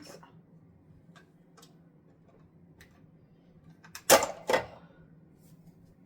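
Plastic parts of a mandoline slicer being handled: a few light clicks, then a short clatter of two or three sharp knocks about four seconds in.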